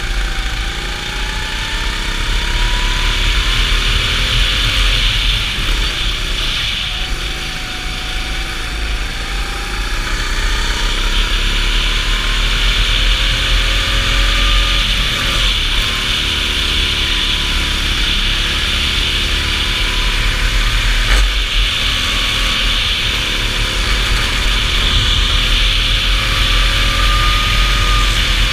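Go-kart engine heard onboard at racing speed. Its revs climb along the straights and fall back twice when it slows for corners, over a steady low rumble.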